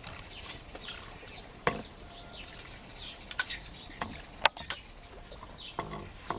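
Birds calling: many short chirps that slide downward, overlapping one another. A few sharp clicks cut through, the loudest about four and a half seconds in.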